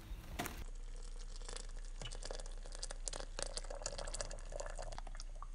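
Water poured from a kettle into a ceramic mug of tea: a steady splashing trickle full of small drips, its pitch rising a little as the mug fills. Before that, a brief rustle of a cardboard box being handled.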